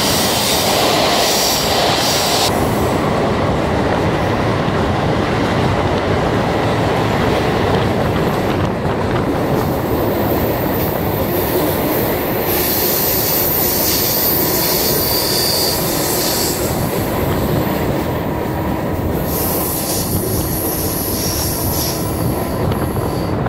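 MEMU electric multiple-unit train running, with a steady rolling rumble from wheels on rails. High-pitched wheel squeal comes and goes: at the start, again from about half way for a few seconds, and again near the end.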